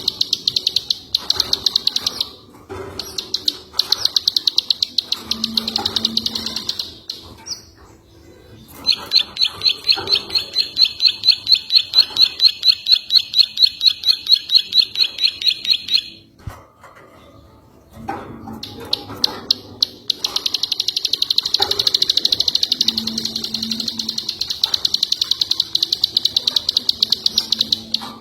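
Ciwah songbird singing in long, fast, high-pitched trills, broken by short pauses, with one phrase of slower, clearly separate repeated notes in the middle: a masteran recording used to train captive songbirds.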